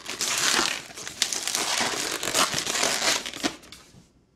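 Long latex twisting balloon being twisted and squeezed by hand into bubbles, with rubbing and crinkling noises that fade out about four seconds in.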